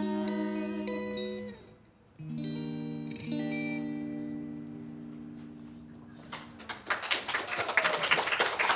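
Guitar playing the closing chords of a slow song: a last chord is struck about two seconds in and left to ring out and fade. Audience clapping starts near the end.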